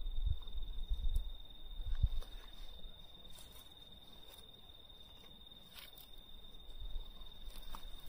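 Crickets trilling in one steady, unbroken high-pitched tone, with low rumbling thumps in the first two seconds and a few faint clicks.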